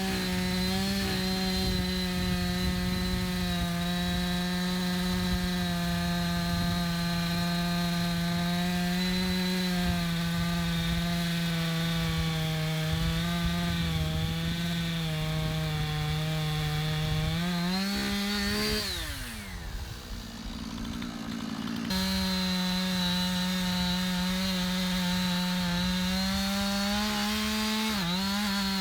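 Husqvarna 460 Rancher two-stroke chainsaw held at full throttle, cutting into a large tree trunk. About 18 seconds in the pitch rises briefly, then falls away as the throttle is released, and the saw idles quietly for a few seconds. It then snaps back up to full cutting speed.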